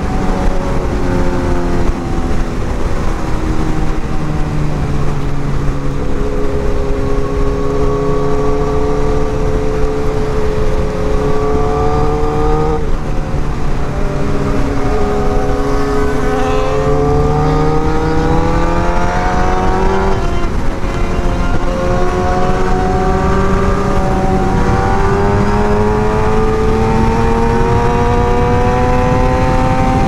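Suzuki GSX-R1000 inline-four engine heard from the bike at highway speed over heavy wind rush. The revs ease off at first, then climb steadily, drop sharply at gear changes about halfway through and again about two-thirds of the way in, and climb once more.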